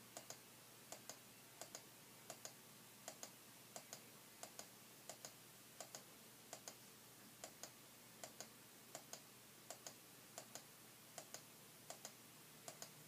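Faint, steady clicking of a computer mouse button: each click is a quick press-and-release pair, repeated about once every 0.7 seconds.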